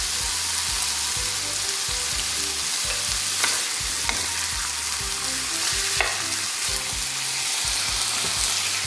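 Chicken, onion and garlic sizzling steadily in oil in a frying pan as tomato paste is stirred in with a spoon. The spoon clicks sharply against the pan about three times, roughly midway.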